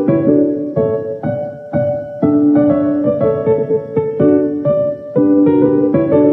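Piano playing a simple repeated figure of notes and chords, a new chord struck about every half second and left to ring.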